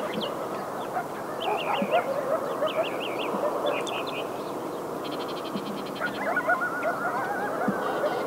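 A pack of coyotes yipping and howling together, many short wavering, quavering calls overlapping throughout.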